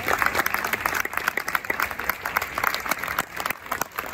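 Audience applauding, many hands clapping densely; the clapping thins a little near the end.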